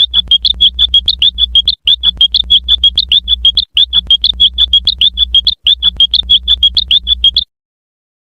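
A high-pitched cartoon sound effect: a rapid, warbling electronic trill pulsing about six times a second. It plays in four runs of nearly two seconds each with brief breaks between them, then stops.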